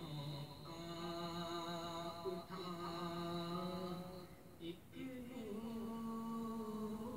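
A single voice chanting in long, steady held notes, about three of them of a couple of seconds each, with short breaks between.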